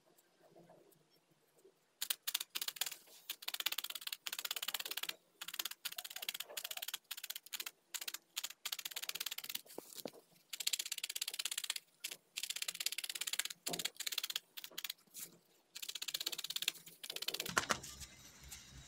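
A felting needle stabbing rapidly and repeatedly through loose wool into a foam pad, a fast run of soft ticks in stretches broken by short pauses, starting about two seconds in. It is felting yellow wool down onto a white felted base.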